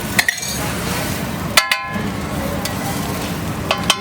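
Metal utensils clinking against cookware: a sharp clink just after the start, a ringing double clink about a second and a half in, and a few more near the end, over steady background noise.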